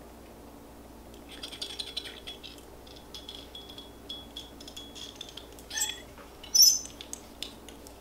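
Light crackly rustling and clicking as hair is handled and clamped in a curling iron, starting about a second in, with a sharp click about six and a half seconds in.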